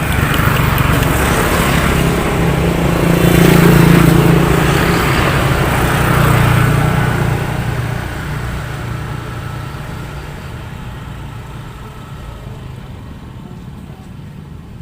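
A motor vehicle passing by: its engine sound builds to a peak about four seconds in, then fades away over the next several seconds.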